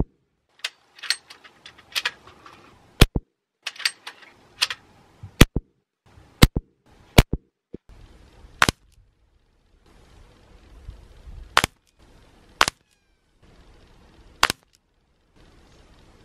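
Beeman QB Chief .22 PCP air rifle firing a string of shots, each a sharp crack, one to three seconds apart. Fainter clicks and knocks fall between them.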